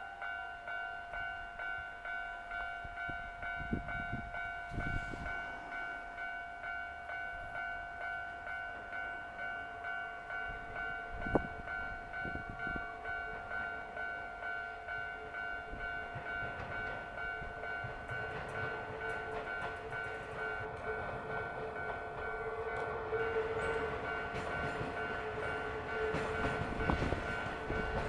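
Electronic warning bell of a Japanese railway level crossing ringing in a steady, even pulse of about two strokes a second. An electric train approaches and grows steadily louder over it, its wheels clacking on the rails as it reaches the crossing near the end.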